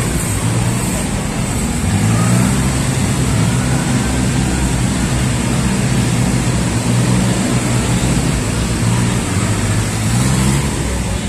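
Motor traffic from a convoy of cars and trucks: a steady, continuous hum of engines and road noise.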